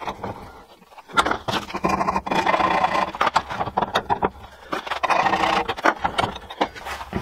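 Steel being worked by hand at a bench vise: irregular metallic scraping and crackling with sharp clicks, in three stretches of one to two seconds.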